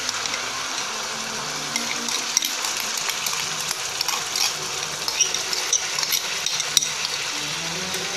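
Hot oil sizzling and crackling in a wok as blended chilli paste is poured in over frying onion.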